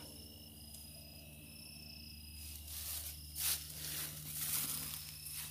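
Crickets and other insects calling steadily. From about two and a half seconds in, loud rustling and brushing as the camera is pushed through grass and bushes, loudest a second later.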